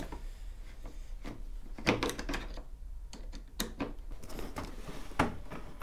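Scattered clicks and knocks of parts being handled and fitted back onto a scooter by hand, with a few sharper knocks about two, three and a half and five seconds in.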